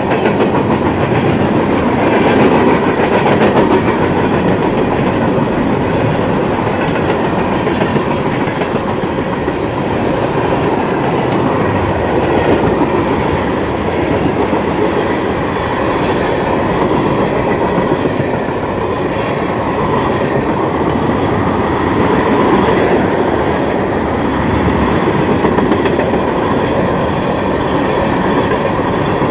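Freight train cars (covered hoppers and tank cars) rolling past at track speed, a steady noise of steel wheels running on the rails.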